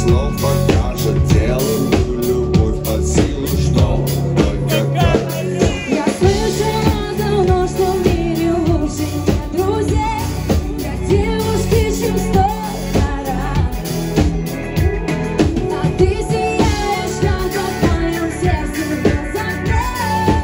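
Live pop song: a woman singing into a handheld microphone over a steady drum beat and bass, with electric guitar, the voice coming in clearly about six seconds in.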